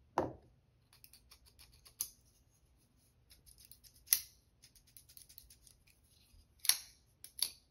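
Benchmade Bugout folding knife worked open and shut by hand: four sharp metallic clicks of the blade and AXIS lock snapping, with faint small clicks and scrapes between, its pivot and lock freshly oiled. A knock right at the start.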